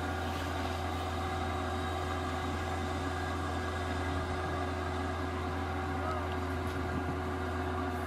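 Kubota combine harvester's diesel engine running steadily as the machine travels: a constant low hum with several steady whines above it.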